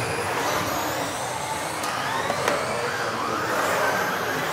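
Several electric RC off-road buggies racing, their motors whining and gliding up and down in pitch as they speed up and slow down, over a steady noise; one sharp click about two and a half seconds in.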